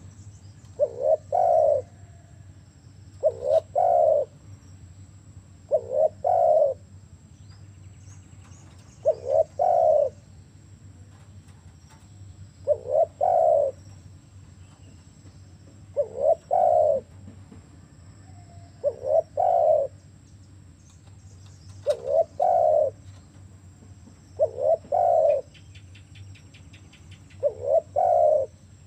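Spotted dove cooing its song, a short double note followed by a longer coo, repeated about every three seconds.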